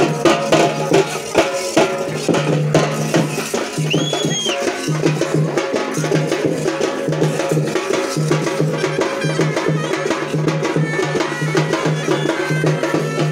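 Music driven by loud, fast, steady drumming over a low pulsing tone, with a short whistle that rises and falls about four seconds in.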